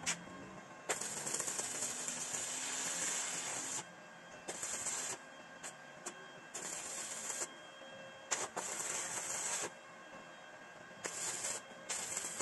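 Compressed air hissing from an air-hose blow gun in repeated bursts of different lengths, the longest lasting about three seconds, as it is blown over a motorcycle engine.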